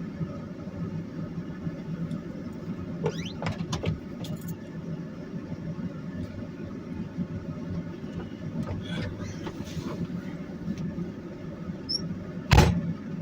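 Steady engine and road noise inside a car driving on snowy, icy roads, with a few short squeaks about three to four seconds in and one loud knock near the end.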